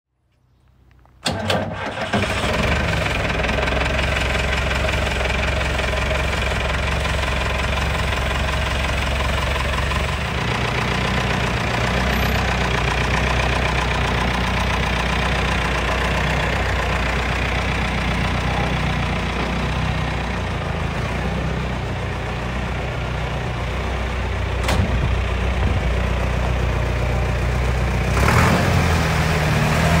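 Nuffield tractor's four-cylinder diesel engine starting about a second in, then running steadily, a little louder near the end.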